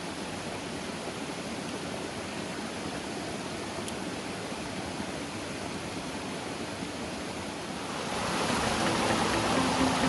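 Mountain stream rushing steadily over small rocky cascades. The rush of water grows louder about eight seconds in.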